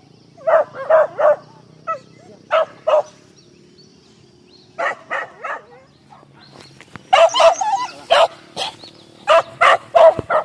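Hunting dogs on a wild-boar hunt barking in short bursts of two or three. The barking grows faster and denser from about seven seconds in.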